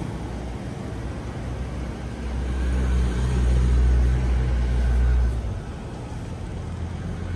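Tata 407 four-cylinder diesel engine of an open 25 kVA generator set running with a steady hum. It grows louder about two seconds in and drops back sharply a few seconds later.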